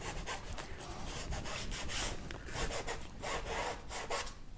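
Flat paintbrush scrubbing acrylic paint onto a stretched canvas: a series of short brushing strokes, about one and a half a second, as the colours are blended together.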